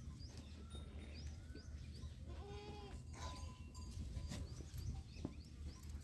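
Goat kids bleating faintly in a pen, with one clearer bleat a little before halfway.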